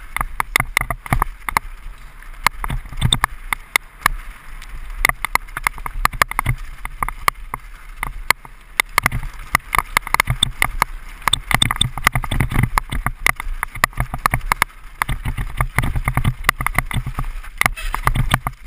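Mountain bike rattling and clattering at speed down a rough dirt trail: a dense, irregular run of clicks and knocks over a low rumble of tyres and wind.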